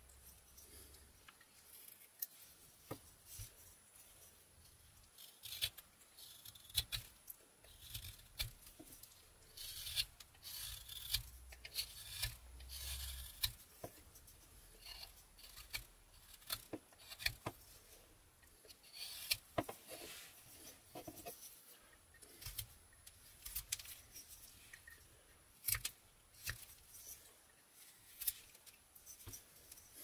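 Mora 122 carving knife slicing shavings off a basswood blank: irregular short scraping cuts with sharp clicks, and a run of longer, denser cuts around the middle.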